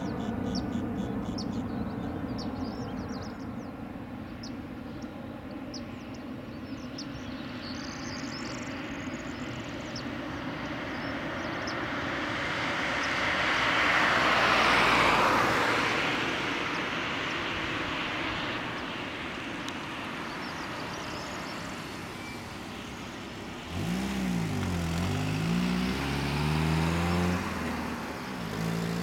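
Distant roar of an Airbus A320-232's two IAE V2500 turbofan engines as the jet climbs away after takeoff, swelling to a peak about halfway through and then fading. Birds chirp over it in the first few seconds, and a lower engine sound with a wavering pitch comes in near the end.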